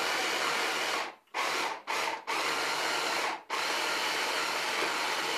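Electric hand blender with its chopper bowl attachment running, mincing raw meat, in bursts: its motor cuts out briefly and starts again three times.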